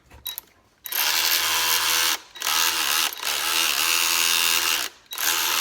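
Ryobi 18V One+ cordless 3/8-inch ratchet's motor running in short bursts on trigger pulls, spinning a socket on an extension. There are four runs, each starting with a brief rise in pitch and then holding a steady whine, the first beginning about a second in.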